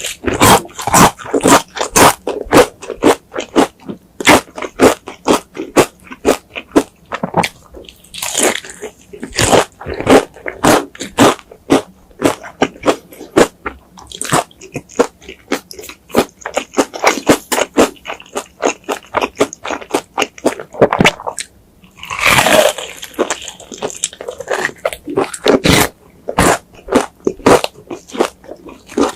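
Close-miked chewing of crunchy food: quick crisp crunches, about two to three a second, with a few louder, longer crunching bites.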